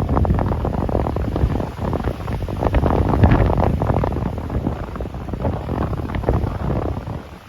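Strong wind buffeting the microphone: a gusty, rumbling rush with crackling, easing off near the end.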